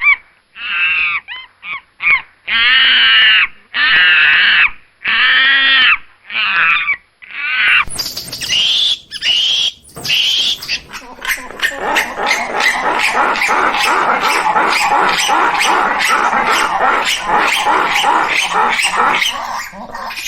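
Squirrel monkey calling: a run of short, wavering pitched cries, then a few higher calls, then from about eleven seconds in a fast, steady chatter of repeated calls, about three a second.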